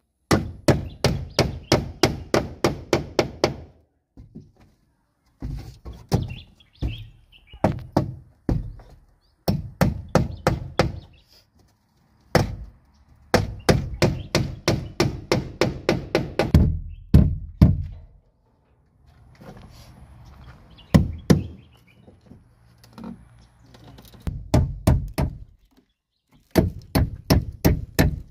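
Claw hammer driving nails into wooden boards, in quick runs of about four or five blows a second broken by short pauses.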